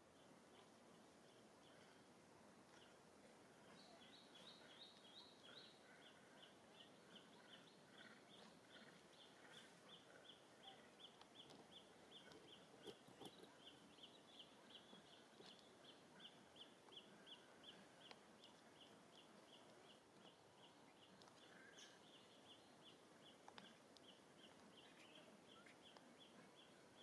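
Near silence: faint outdoor ambience with a quiet, fast, regular high-pitched chirping that starts about four seconds in, about three to four chirps a second.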